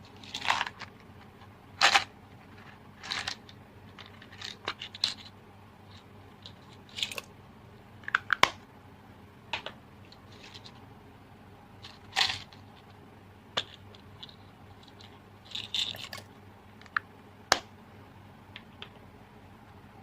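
Slime with mixed-in add-ins being squeezed and pressed by hand, giving short irregular crunchy pops and crackles every second or two.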